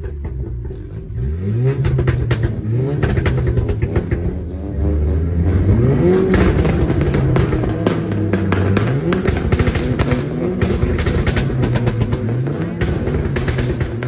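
A Volkswagen car's engine revving over and over, its pitch rising and falling, mixed with music.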